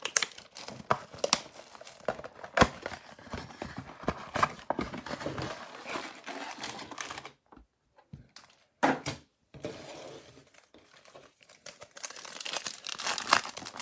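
Hands tearing open a cardboard trading-card box and handling the foil-wrapped card packs inside: crackly tearing and wrapper crinkling, with a short lull a little past halfway and denser crinkling near the end.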